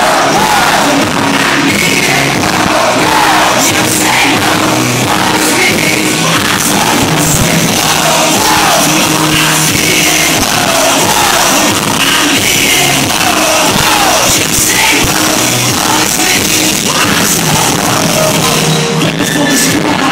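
A live band playing loudly through a concert sound system, with a singer's gliding vocal line over a steady bass part. It is heard from within the audience, with some crowd noise.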